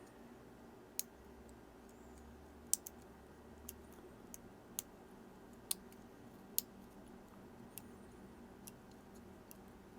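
Faint, irregular light clicks, about a dozen spread over the stretch, as the small metal and plastic parts of a Casio G-Shock watch module are handled and fitted together.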